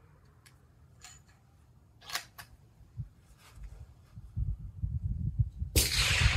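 Homemade single-shot 6mm-223 bolt-action rifle: a few metallic clicks as the bolt is closed on a round, a low rumble, then one rifle shot near the end whose report rings on with a long echo.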